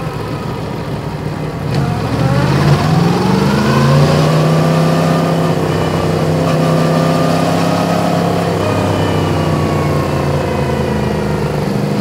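Yamaha MT-10's crossplane inline-four engine, fitted with an Akrapovic exhaust, accelerating with a rising pitch for a couple of seconds, then holding steady revs. Near the middle it eases off slightly and then keeps running evenly.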